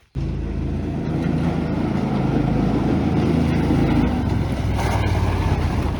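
Engine of a John Deere Gator 6x4 utility vehicle running steadily as it drives, cutting in suddenly just after the start.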